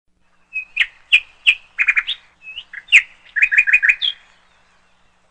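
Bird chirping: a run of short, sharp chirps and brief whistled notes that stops about four seconds in.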